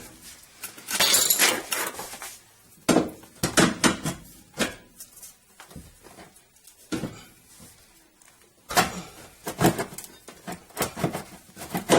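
Irregular metal clanks, knocks and scraping as a VE Commodore's rear strut and coil spring assembly is levered out past the suspension arms, a tight fit. A scraping rush comes about a second in, then scattered knocks, a lull, and a cluster of knocks near the end.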